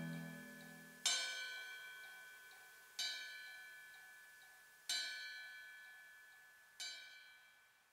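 Quiet passage of music: a bell-like chime struck four times about two seconds apart, each note ringing out and fading, the last one softest. A low held note dies away in the first second.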